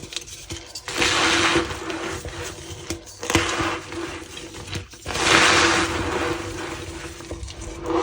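Reformed gym chalk blocks being crushed by hand, crunching and squeaking in three bursts, the longest about halfway through.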